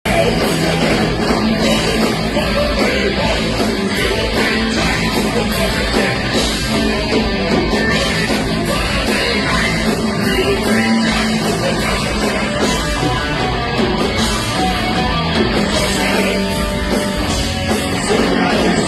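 Live heavy metal band playing loudly and continuously: distorted electric guitars, bass guitar and drum kit.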